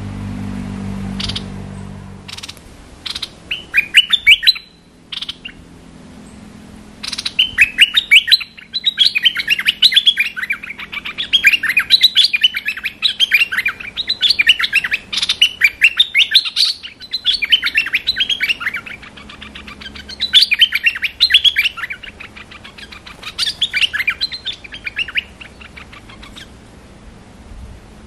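Songbird of the kind Thai keepers call nok dok taeng, singing in repeated bursts of fast, bright chirping notes with short pauses between them, from the decoy in its cage or a wild bird answering it.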